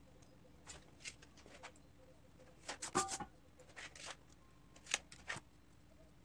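Felt-tip marker scratching in short strokes on a cardboard template lying on sheet metal, with a louder scrape and rustle of the cardboard being shifted about three seconds in and a couple of sharp taps near the end.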